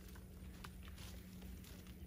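Faint rustling of dry peppermint stems and a sweatshirt sleeve brushing close to the microphone, with a couple of light clicks over a low steady hum.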